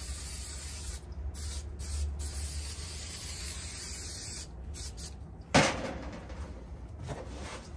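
Aerosol can of spray adhesive hissing in several bursts with short breaks. A single sharp knock comes a little after halfway, and the spraying is fainter afterwards.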